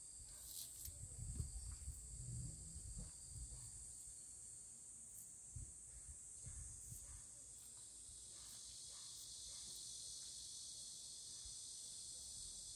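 A steady, high-pitched chorus of summer insects that grows fuller about eight seconds in. Faint rustles and small clicks of green onion stalks being peeled and trimmed by hand come through now and then.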